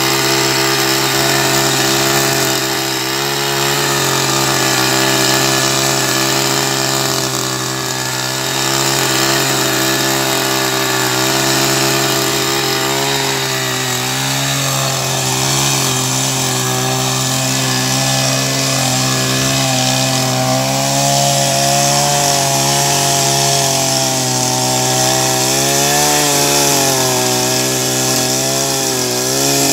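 Small petrol motor tiller (motocultivador) running steadily while its tines dig the soil to form a basin around a tree trunk. The engine note holds one pitch that wavers and dips now and then as it takes load, most clearly near the end.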